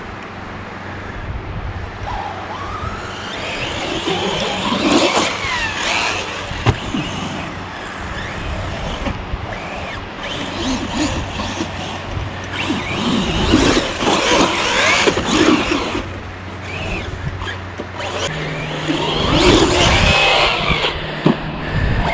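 Corally Asuga 6S RC buggy's brushless electric motor whining, its pitch rising and falling as the car speeds up and slows, loudest in three bursts of hard driving, over a steady hiss of wind and sand.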